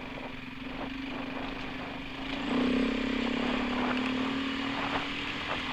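Dirt bike engine running while riding along a dirt track, a steady note that gets louder about two and a half seconds in.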